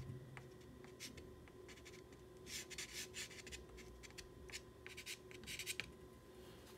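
Pastel stick scratching and rubbing across a paper board in a few short bursts of strokes, faint.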